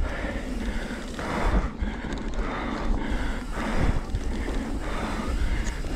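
Wind rumbling over the microphone of a mountain bike descending a trail at speed, with the rider's hard breathing coming in rhythmic hissy swells about once a second.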